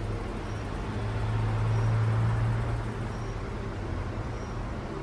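A low engine-like hum that swells to its loudest about two seconds in and eases off again, as of a vehicle passing. A faint high pip repeats about every second and a half.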